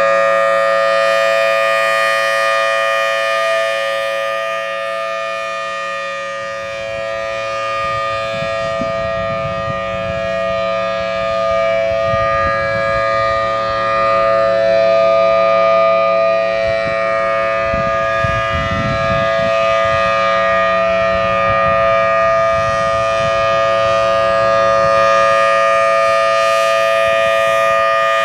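Federal Signal Thunderbolt outdoor warning siren sounding a steady tone at a constant pitch, with no rise or fall, its loudness slowly sagging and swelling again.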